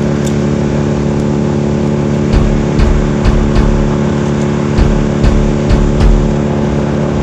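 Top-handle chainsaw idling steadily close by, with low irregular thumps and knocks over it from a couple of seconds in.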